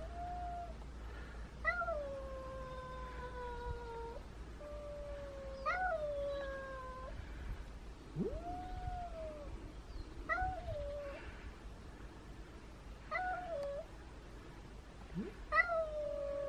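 Cat yowling: a string of long, drawn-out moaning yowls, each rising sharply and then sliding slowly down, repeated every few seconds. This is the warning yowling of one cat at another in a standoff.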